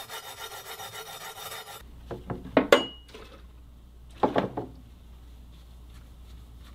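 A few short rubbing and scraping strokes of hand sanding on a steel cleaver blade, with a brief metallic ring in the middle, while the spine is brought to a high polish. A low steady hum lies underneath.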